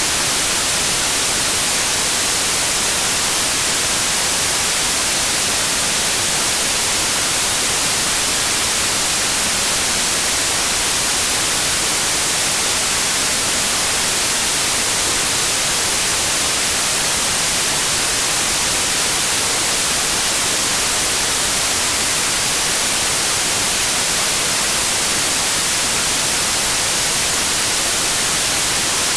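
Steady synthetic white noise: an even, unchanging hiss, brightest in the treble.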